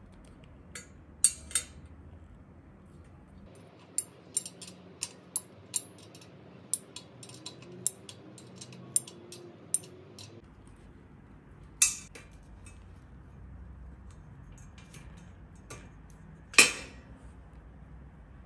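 Short, sharp metal clicks of an L-shaped hex key being turned and reset on a bolt in the plastic bracket of an IKEA MULIG steel drying rack, coming in a run of about two a second for several seconds. A couple of single clicks follow, the loudest near the end.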